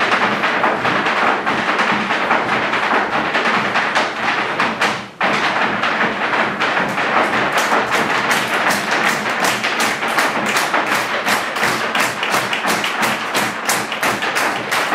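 Irish dance hard-shoe footwork: rapid rhythmic taps and stamps on the stage floor, with music. After a brief break a little over five seconds in, the taps come sharp and fast.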